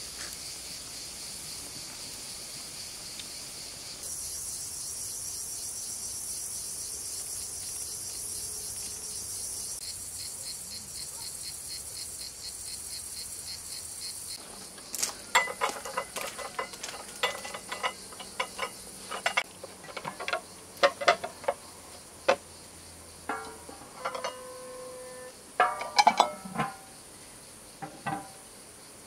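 Insects chirring steadily for about the first half, then a run of sharp clinks with short ringing tones as ceramic plates and cups are set down on a table.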